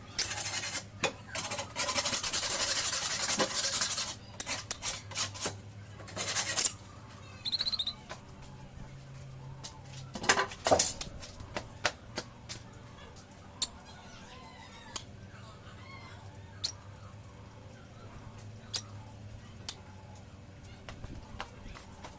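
Rustling or scraping for about four seconds, then scattered knocks and clicks, with faint bird chirps in the second half.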